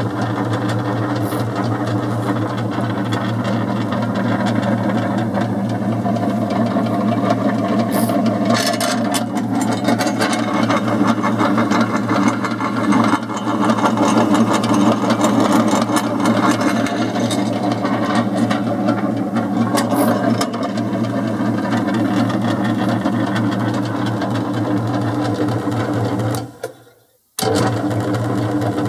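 Nihon Chouriki VA-20 vegetable cutter running empty, its electric motor humming steadily while the cutting disc spins. About 26 seconds in it cuts out for under a second, then runs again.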